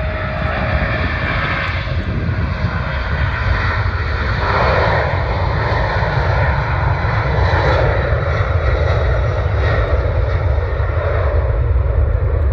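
Boeing 767-200 freighter's twin jet engines at takeoff thrust during the takeoff roll: a loud, steady jet noise that grows brighter about four seconds in as the airliner accelerates down the runway toward lift-off.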